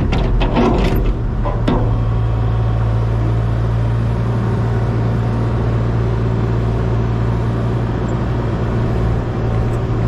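A steady low engine drone, with a few sharp clicks and knocks in the first two seconds.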